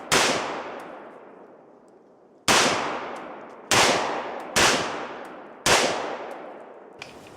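Five rifle shots from a 10.5-inch AR-15 pistol chambered in .223 Wylde, firing steel-case .223, spaced irregularly about one to two seconds apart. Each shot echoes for a second or two.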